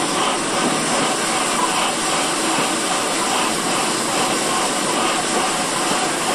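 GWR 2800-class 2-8-0 steam locomotive No. 2857 running slowly, heard from its front: a steady hiss of steam with faint regular pulses.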